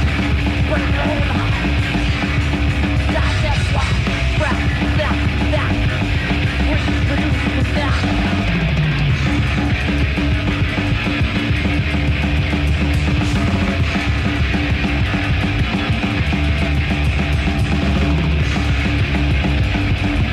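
Death metal band playing live: heavily distorted guitars, bass and drums in a loud, dense, unbroken wall of sound.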